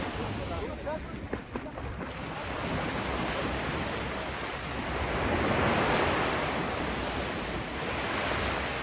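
Ocean surf washing onto a beach, waves swelling and receding, one breaking wave loudest about two-thirds of the way in, with wind buffeting the microphone.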